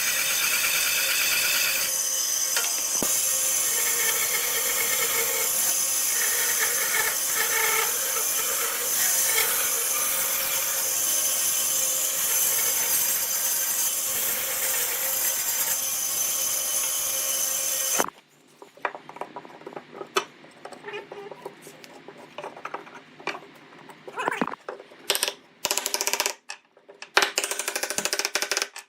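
A woodworking power tool runs steadily and cuts off abruptly about 18 seconds in. Scattered sharp knocks and clicks follow, as wood and tools are handled.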